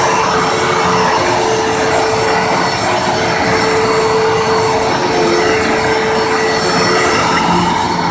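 Hoover WindTunnel Bagged upright vacuum cleaner running steadily: a rush of air under a steady motor whine, swelling and easing slightly every few seconds.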